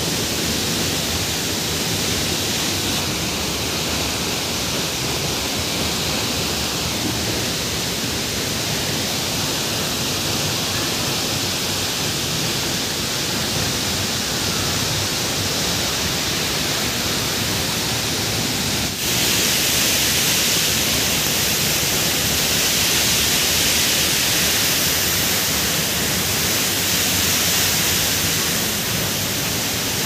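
Steady rush of heavy rain and the waterfall's falling water. After a short break about two-thirds of the way in, it is louder and hissier.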